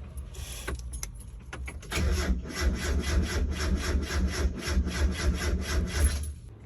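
A 1992 Mazda Miata's starter cranking its 1.6-litre four-cylinder engine, which does not catch, with the engine ground cable disconnected. A few clicks, then about two seconds in an even chugging at about four or five beats a second that stops near the end.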